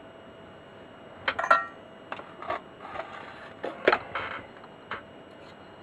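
Workbench handling of a valve radio chassis: scattered clicks and taps of tools and parts against metal, with one clink that rings briefly about 1.5 s in and a louder knock near 4 s as the soldering iron is taken up. A faint steady tone runs underneath.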